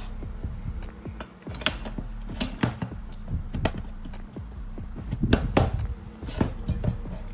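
Irregular clinks and knocks of metal tools and parts being handled and set down on a workbench, over a steady low hum.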